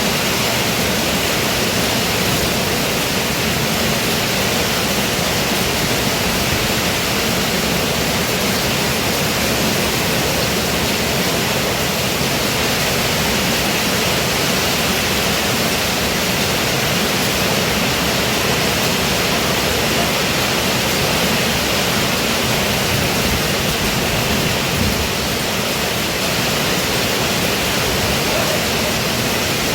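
Heavy rain pouring steadily, a dense, even hiss with no breaks.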